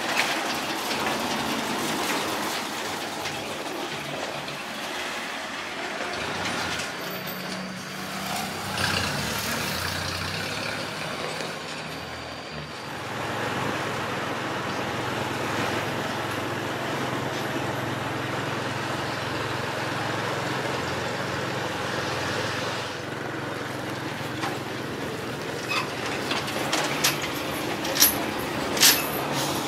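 Old dump truck's engine running with a steady low drone, its note shifting about a third of the way in and then holding steady. Several sharp knocks or clanks come near the end.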